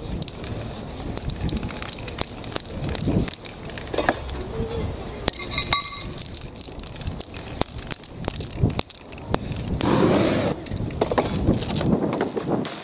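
An aerosol spray paint can hissing, with paper rustling and crackling as it is pressed onto the wet paint and peeled off the canvas.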